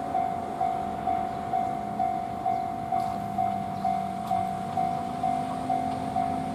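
Japanese level-crossing warning bell ringing steadily at about two strikes a second. Under it is the low hum of an approaching JR Shikoku 2000 series diesel railcar, which steps up in pitch about five seconds in.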